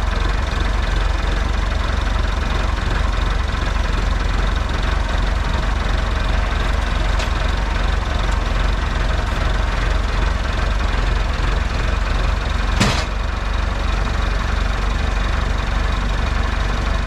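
Portable sawmill's engine running steadily, with a single sharp knock about 13 seconds in.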